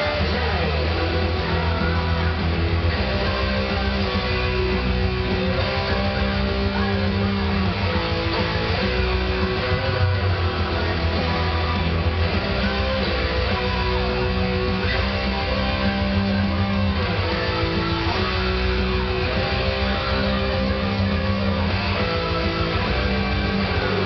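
Electric guitar playing a heavy-metal song's riffs and lead lines along with a full backing track, the music continuous and steady in level.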